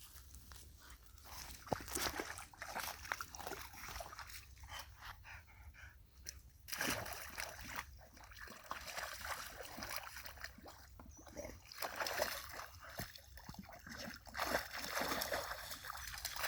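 A dog splashing around in shallow pond water and snapping at it, with irregular splashes and sloshes.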